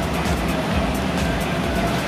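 Background music with a steady beat over a continuous low rumble from an idling diesel locomotive.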